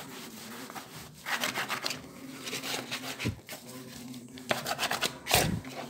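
A plastic bank card used as a spatula, scraped across wet acrylic paint in several strokes to open up the paint layer, with a soft thump in the middle and a louder one near the end.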